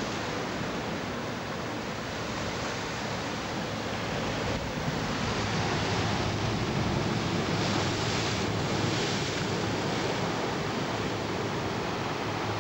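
Sea waves washing and surging, with wind buffeting the microphone; the rush swells louder about eight seconds in.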